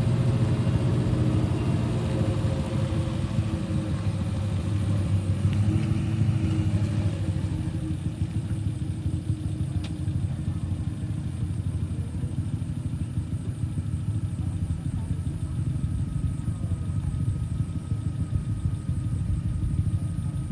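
Off-road vehicle's engine running steadily at moderate revs, easing slightly about seven seconds in.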